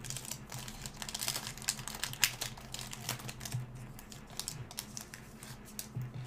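Foil trading-card pack wrapper crinkling and crackling as it is opened, then the cards are slid out and shuffled against each other. The crackles are dense for the first three seconds or so and thin out after.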